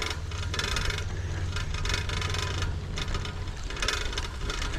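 Trek FX2 hybrid bicycle being ridden on a trail: rapid mechanical clicking and rattling from the bike over a steady low rumble.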